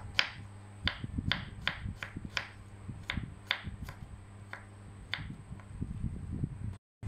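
Kitchen knife slicing garlic cloves on a wooden cutting board: sharp taps of the blade striking the board, about two a second, stopping after about five seconds.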